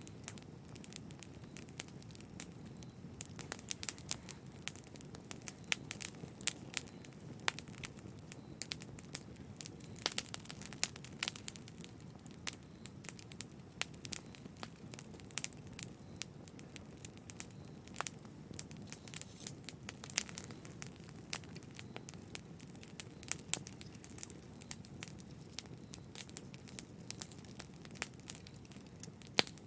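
Wood fire crackling in a fireplace: frequent sharp, irregular pops and snaps over a soft low rumble of the flames.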